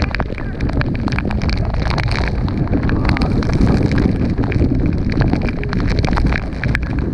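Wind and spray buffeting the microphone in heavy gusts over the steady roar of the Horseshoe Falls, with many sharp crackles throughout.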